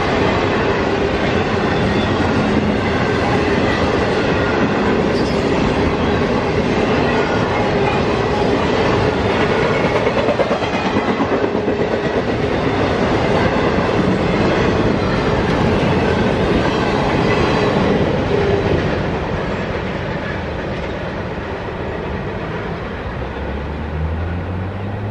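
A freight train of empty flatcars rolling past at speed: a steady, loud rumble and rattle of steel wheels on rail, easing off in the last quarter.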